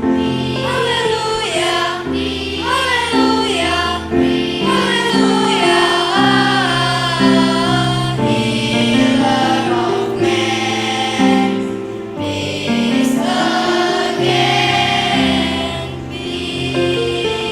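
Children's choir singing a sacred song over steady held accompaniment notes.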